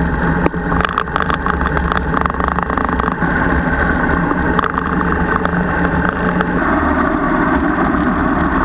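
Motorcycle engine running while riding, with heavy wind noise on a bike-mounted microphone. The sound shifts about six and a half seconds in, at a cut to another stretch of road.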